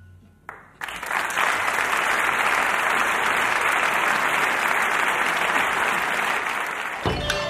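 Audience applause after a piece of music ends. It comes in about half a second in, swells within a second and holds steady, then gives way abruptly to new music near the end.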